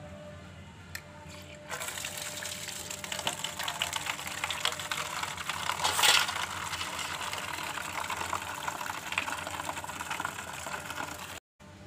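Water pouring and splashing into a steel basin of bangles and soapy water, churning up suds. It starts about two seconds in, is loudest around the middle, and cuts off suddenly near the end.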